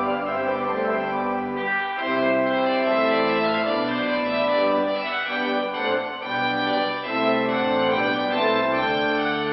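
Organ playing a trumpet tune: sustained chords under a melody, the harmony shifting every second or so, with fuller low notes coming in about two seconds in.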